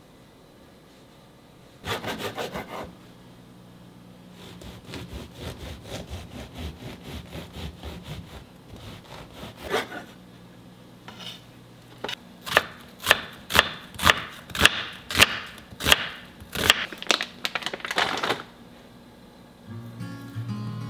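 A knife sawing through a crusty loaf of bread on a wooden cutting board: runs of quick strokes, then louder strokes about two a second through the crust.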